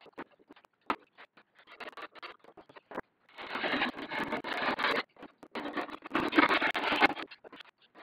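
Masking tape pulled off the roll in two long crackling pulls of about a second and a half each, the second ending near the end, after a few seconds of scattered small clicks and taps of hands handling the wood strips.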